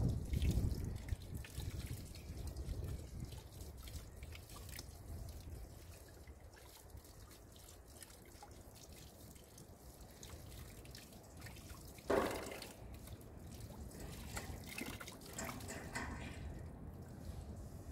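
Water dripping in scattered drops, with a low rumble fading away over the first couple of seconds and a single louder knock or rustle about twelve seconds in.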